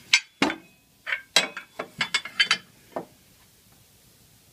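Metal clicks and clanks, about a dozen over the first three seconds, as the sliding metal fence extension of a Ridgid MS1290LZ miter saw is worked loose and lifted off.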